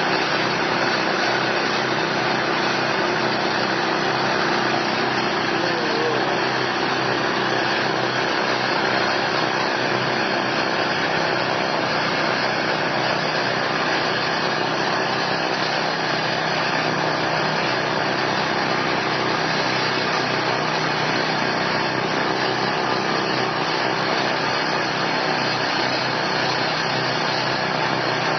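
A 6.5 hp single-cylinder four-stroke petrol engine on a snow blower running steadily under load. Its auger churns through snow and the chute throws it out.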